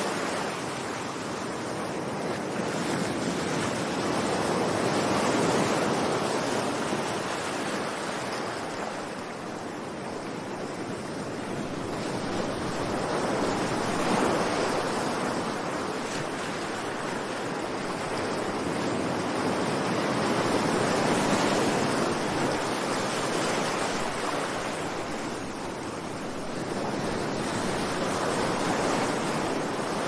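Ocean surf: waves breaking and washing ashore, the rush of water swelling and falling back about every eight seconds.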